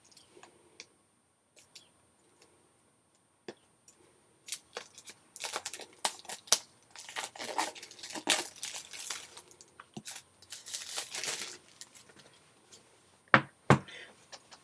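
Plastic shrink-wrap on a phone box being torn and crinkled off after being cut with a key: a few small clicks at first, then a run of rasping tears and crinkles from about four seconds in. Two sharp knocks come near the end.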